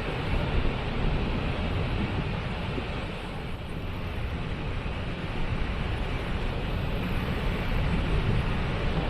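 Waterfall rushing steadily, a dense roar of falling water heaviest in the low range.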